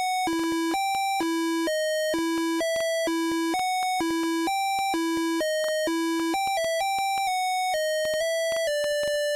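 Zetafone LT-600 ringtone: a single-voice electronic beeping melody, about two notes a second, alternating a repeated low note with higher ones. Near the end it slows into longer held notes that step downward.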